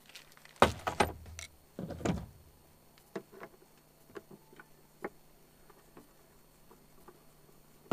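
A couple of loud knocks and clatter in the first two seconds, then scattered small metal clicks and ticks as a screwdriver works the screw holding the latch of an RV baggage door's CH751 cam lock.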